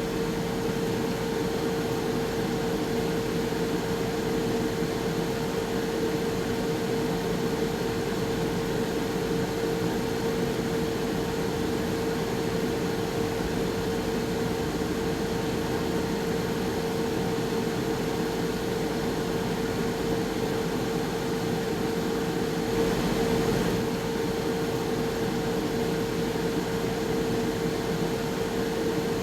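Air fryer running: a steady whir from its fan and motor with a constant hum. There is a brief, slightly louder swell about two-thirds of the way through.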